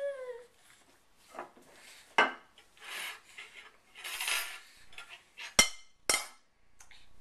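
Ceramic serving dish and its lid being handled by a toddler: scattered knocks and rustling, then two sharp clinks of lid and fork against the dish about half a second apart near the end. A child's short sung note trails off at the very start.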